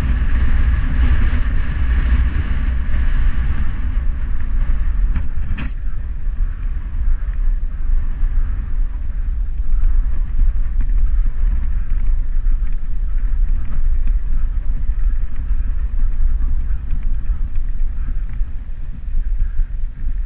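Mountain bike riding down a rough dirt track: a steady low rumble from the knobby tyres on dirt and wind on the camera's microphone, with the bike rattling. There is a sharp knock about five and a half seconds in.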